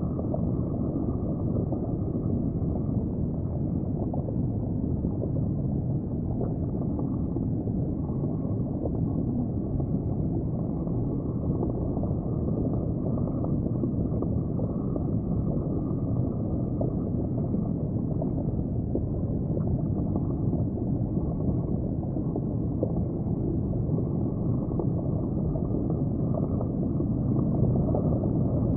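Steady, muffled underwater rumble and gurgle of water moving in an aquarium tank, with nothing high-pitched in it.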